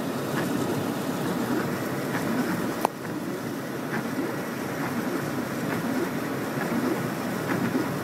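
Steady road and tyre noise of a car on a wet highway, heard from inside the car, with one sharp click about three seconds in.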